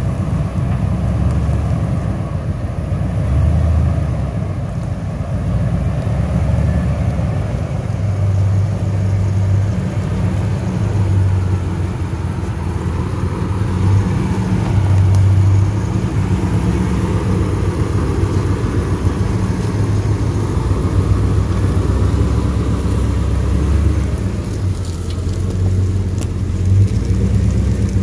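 Engine of a GMC dually pickup truck running at idle, a steady low rumble.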